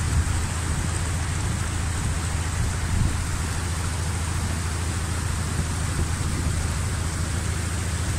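Fast, shallow mountain river rushing over rocks and rapids: a steady roar of water.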